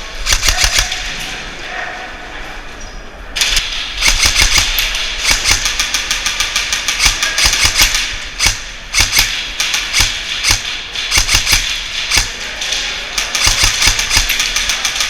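Airsoft guns firing in rapid bursts, a fast rattle of many shots a second. There is a short burst at the start, then long, nearly continuous bursts from about three seconds in.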